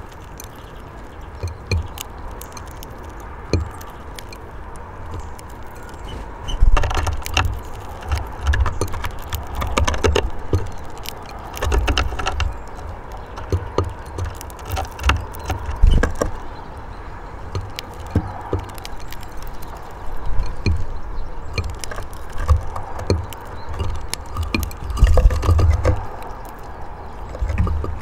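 Scattered sharp clicks and taps of a greenfinch pecking and husking seed from a dish on a wooden bird table, over a low outdoor rumble that swells and fades.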